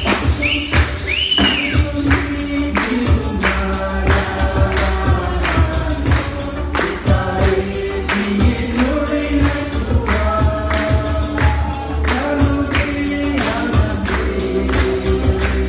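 A song: singing over a fast, steady percussion beat.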